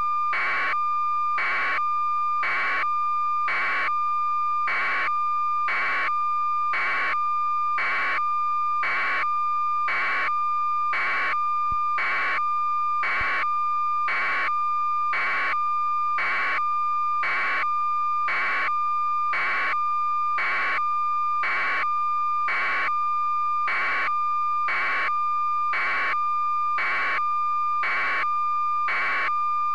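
Electronic beeping: a steady high tone pulsing evenly, about one and a half beeps a second, without change.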